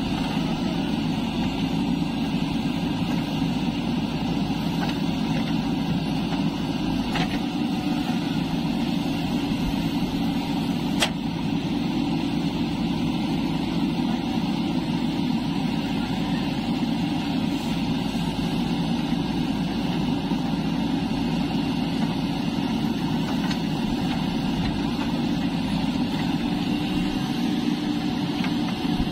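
JCB 3DX backhoe loader's diesel engine running steadily under load as the backhoe digs soil, with a single sharp knock about eleven seconds in.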